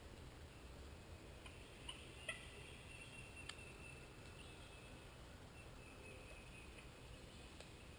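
Faint turkey calling in quiet woods: a few short clucks or yelps in the first few seconds, one trailing into a briefly held high note, over a soft steady background.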